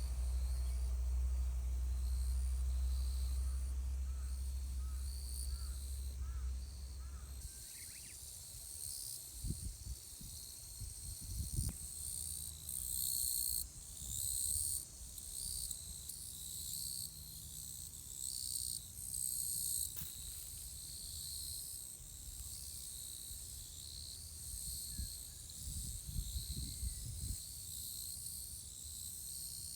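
Outdoor ambience with a steady high insect chorus. A low rumble stops sharply about seven seconds in, and scattered low thumps come later.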